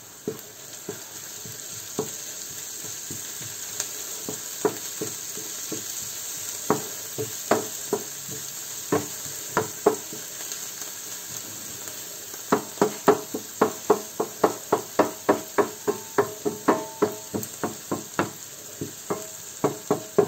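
Sofrito of chopped onion and green pepper sizzling in a non-stick frying pan while a wooden spoon stirs it, knocking against the pan. The knocks come only now and then at first, then in a quick run of about three a second from a little past halfway.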